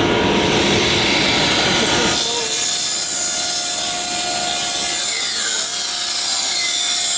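Table saw ripping a board, its blade running steadily through the wood, with the dust collector running. The sound changes about two seconds in, thinning to a steady high hiss.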